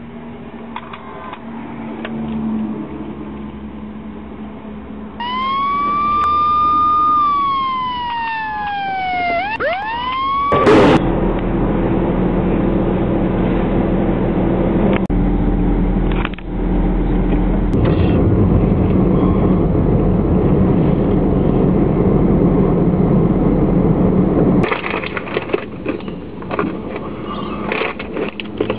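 A police siren sounds for about five seconds: it rises, holds, falls in a long glide, then gives a couple of quick sweeps before cutting off at a sharp click. A loud, steady low rumble of a car engine follows for about fourteen seconds, then gives way to fainter clattering noise near the end.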